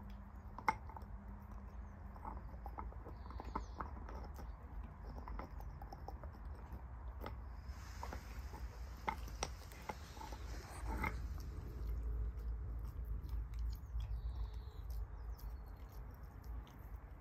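A Norwegian Buhund gnawing on a collarbone: irregular clicks and crunches of teeth on bone, with one sharp crack about a second in.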